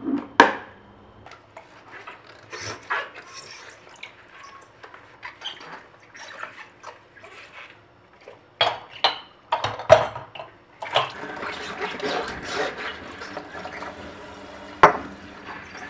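Kitchen dishes and utensils clinking and knocking in a scatter of short sharp sounds, then a steady wash like running tap water from about eleven seconds in, with one sharp knock near the end.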